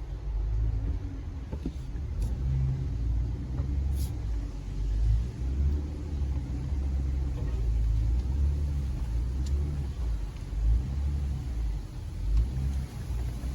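Jeep Gladiator Rubicon's 3.6 Pentastar V6 running at low trail speed, a low uneven rumble heard from inside the cab.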